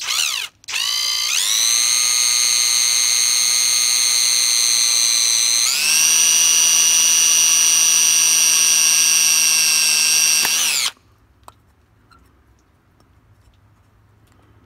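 Handheld power drill boring a small hole through thin aluminium square tubing: a brief blip of the trigger, then the motor whine spins up and runs steadily, steps up to a higher speed about halfway, and stops suddenly about 11 seconds in.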